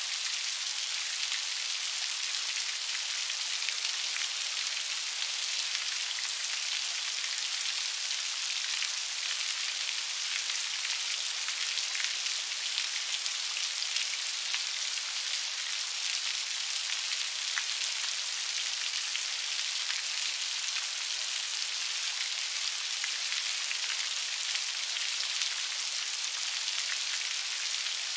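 Steady rain falling, an even hiss of many drops with faint ticks of single drops scattered through it.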